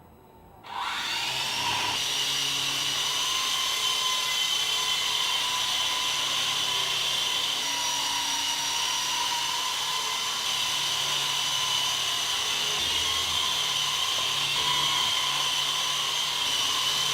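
Small DC motor driving a propeller, starting up about a second in with a brief rise in pitch, then running at a steady high-pitched whine with a rush of air.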